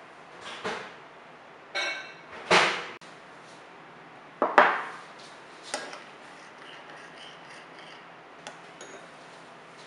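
A small ceramic bowl is handled and set down on a wooden tabletop with several knocks and scrapes, the loudest about two and a half and four and a half seconds in. After that, a spoon stirs the freshly heated gelatin water in the bowl with faint light clinks.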